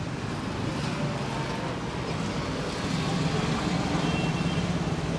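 Street traffic noise with a motor vehicle's engine running close by, its low hum growing louder over the second half.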